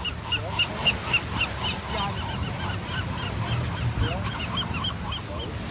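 A bird calling over and over in short high notes, about three or four a second, with fainter animal calls and a low steady rumble of surf or wind behind.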